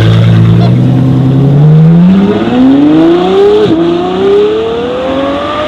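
High-performance car engine accelerating hard: the note holds steady at first, then climbs in pitch, drops sharply at an upshift about two-thirds of the way through, and climbs again.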